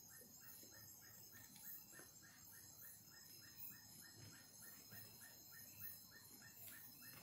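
Faint night chorus of insects: a steady high trill with a rapid pulsing call repeating evenly about five times a second.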